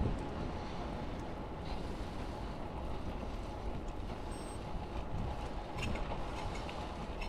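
Bicycle towing a trailer rolling along a street: steady wind rush on the action-camera microphone with tyre and road noise. A few light rattles come about six seconds in.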